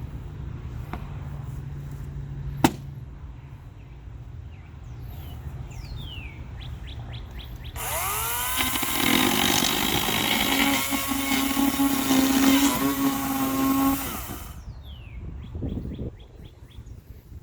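Battery-powered Kobalt chainsaw whirring up about eight seconds in, running steadily for about six seconds while cutting, then stopping. There is a sharp click early on, and birds chirp before and after the saw runs.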